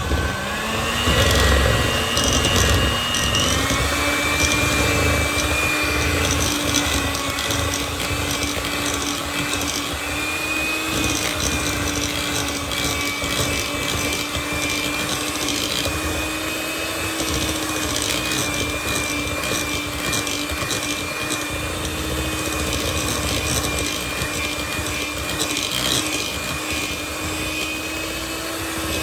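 Electric hand mixer running steadily, its beaters creaming butter and sugar in a glass bowl. The motor's whine rises in pitch over the first few seconds, then holds level.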